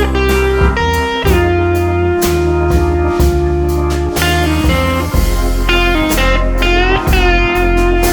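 Instrumental background music: long held notes over a steady low bass, with one note sliding up in pitch near the end.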